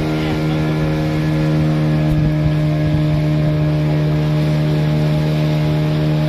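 A small open boat's engine running at a steady cruising speed, a constant drone that holds its pitch.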